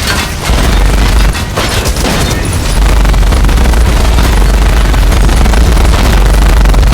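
Loud action sound effect of rapid gunfire and booming explosions over a deep rumble. It runs densely throughout and cuts off sharply just after the end.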